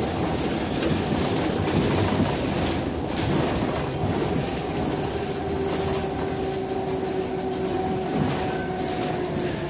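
Scania K270 trolleybus running, its electric traction motor giving a steady whine over road rumble and body rattles, with a few knocks.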